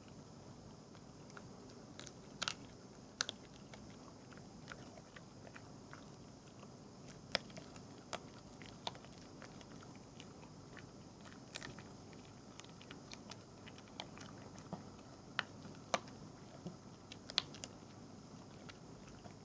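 A small animal gnawing and nibbling at food: faint, irregular crisp crunches and clicks, sometimes two or three close together, over a steady low hiss.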